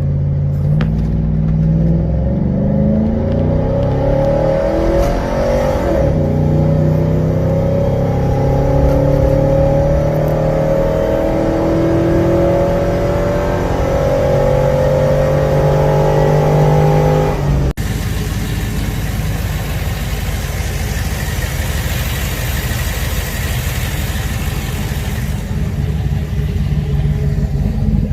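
Cammed 5.3 L V8 of a 2004 Chevrolet Avalanche, fitted with a Texas Speed stage 3 high-lift camshaft, accelerating with its pitch climbing steadily for about fifteen seconds. After a sudden cut, the engine runs with a rough, rapidly pulsing exhaust note.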